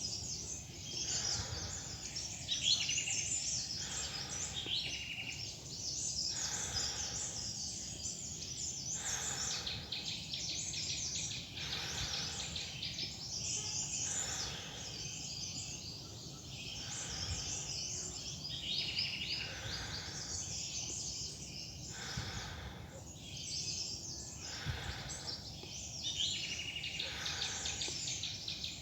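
Many forest birds chirping and calling over one another without a break, with short rustling sounds every second or two, typical of footsteps on a loose, leafy trail.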